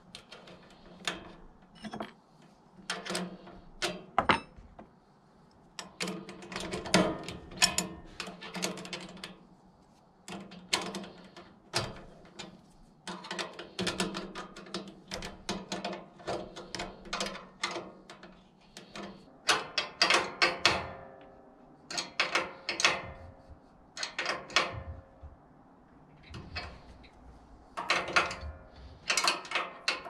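Nut and lock washer being tightened onto a bolt with a small wrench: bursts of metal clicking and clinking as the tool works the nut against the steel bracket, coming every few seconds.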